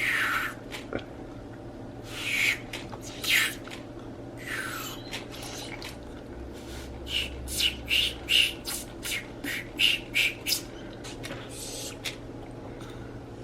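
Trigger spray bottle on its mist setting, sprayed in short hissing squirts: a few spaced ones, then a quick run of about two a second near the middle.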